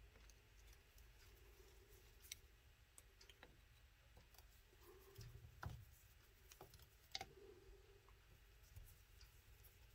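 Near silence with a few faint, scattered clicks, the clearest a little past halfway: a screwdriver turning out the top-cover screws of a Carter BBD carburetor.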